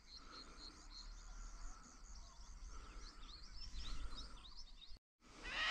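Faint dawn chorus of small birds chirping and twittering in repeated short notes over a quiet wetland. Near the end, after a brief break, a louder wavering honking call of magpie geese begins.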